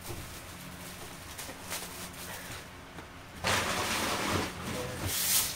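Rustling of brown packing paper inside a cardboard box as hands dig through it, starting about three and a half seconds in and lasting about two seconds; before that, only faint handling sounds.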